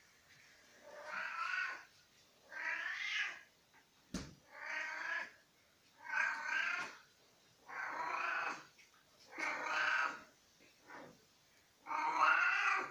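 A domestic cat meowing over and over: about eight long, wavering meows, roughly one every one and a half seconds, with a shorter one near the end. The meows are typical of a hungry cat demanding food. A single sharp click comes about four seconds in.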